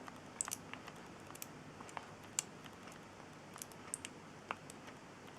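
Faint, irregular clicks and light taps of small plastic model-kit parts being handled and worked, about a dozen spread unevenly.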